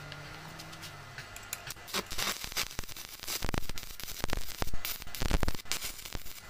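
Stick (shielded metal arc) welding on steel rebar: the arc strikes about two seconds in, then crackles and sputters unevenly, growing louder in the second half.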